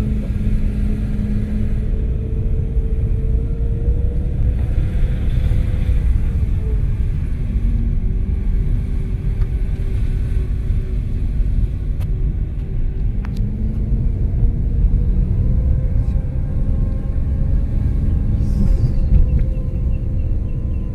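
Car engine and road rumble heard from inside the cabin while driving slowly, the engine note drifting slightly up and down. Two sharp clicks come a little past the middle.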